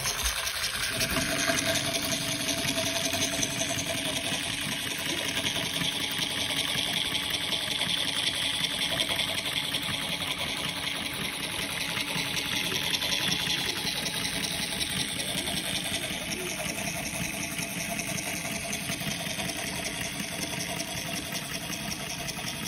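Motor-driven model oil pumpjack desk toy running fast: a small electric motor whining steadily under a rapid, even clatter from its crank and linkage.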